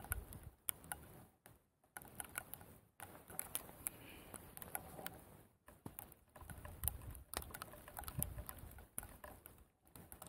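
Faint wind buffeting the camera microphone in gusts, with scattered light ticks and crackles.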